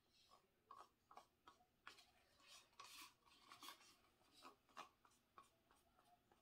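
Faint, irregular scraping and light taps of a wooden craft stick working thick acrylic paint around the inside of a small paint cup.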